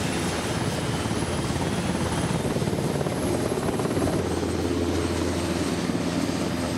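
NH90 Caïman Marine naval helicopter's rotor beating and turbines running steadily as it lifts off and climbs away.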